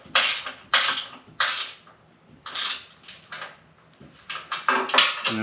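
A 13 mm ratcheting wrench is tightening a running-board mounting bolt. It makes a run of short metallic ratcheting rasps, one for each back-and-forth stroke, about every half-second to a second with small pauses between.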